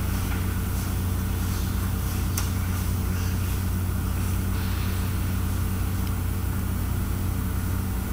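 Steady low hum: the background drone of a large aircraft hangar, with one faint click about two and a half seconds in.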